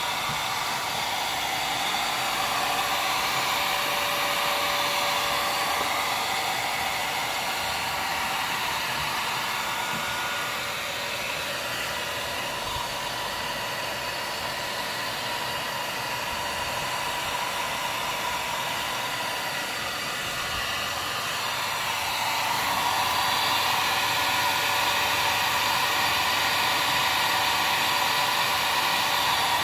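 A 1500-watt Chicago Electric heat gun blowing hot air in a steady rush, held close to an aluminum Ruger 10/22 receiver to heat it so it expands more than the steel barrel and lets the barrel lift out. The rush grows a little louder about three-quarters of the way through.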